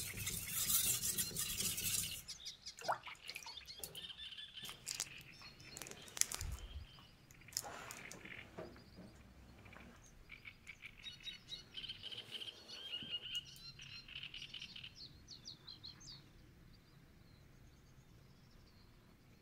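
Damascus cleaver blade stroked rapidly back and forth on a whetstone for about two seconds, then stopping. A few handling clicks follow, then small birds chirping from a meadow ambience track.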